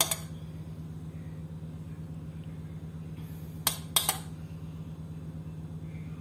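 A metal spoon clinks against a dish: one tap at the start, then two quick clinks close together about two-thirds through, the loudest sounds here, over a steady low hum.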